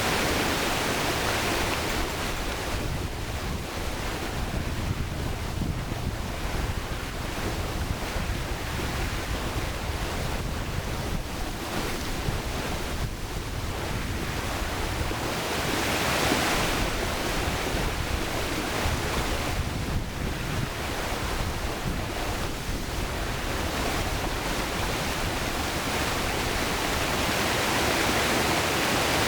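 Rushing river water: a steady, even noise that swells and eases a little without ever stopping.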